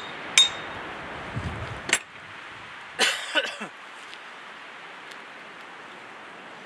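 Hammer striking metal with a ringing clink about half a second in, and a second sharp knock near two seconds, then a short rough scraping sound about three seconds in. Afterwards only a steady faint hiss remains.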